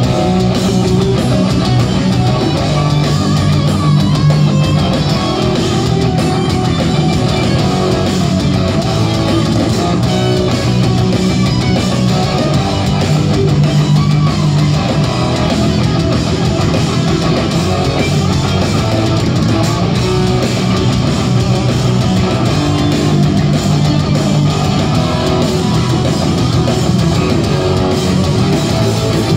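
Heavy metal band playing live: loud, distorted electric guitars over bass and drums, heard from within the audience.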